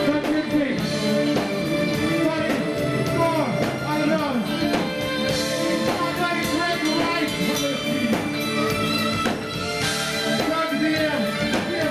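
Live band playing with drums, and a man's voice singing into a handheld microphone over it.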